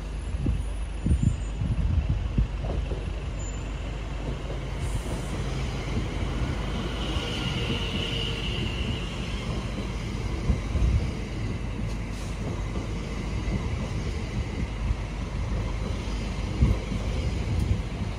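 Two coupled Class 720 Aventra electric multiple units running along the platform: a steady low rumble of wheels on rail with occasional thumps, and a brief high whine about seven seconds in.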